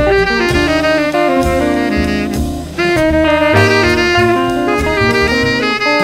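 Tenor saxophone soloing in a jazz ballad, a moving melodic line over upright bass and drum kit; the sax line breaks off briefly about halfway through, then comes back in.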